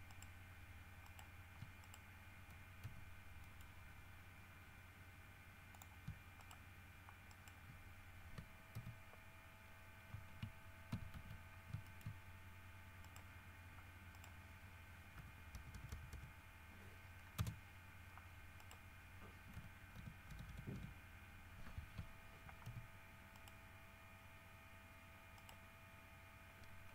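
Faint, scattered clicks and taps of a computer keyboard and mouse over a steady low electrical hum, the clicks bunching in the middle stretch.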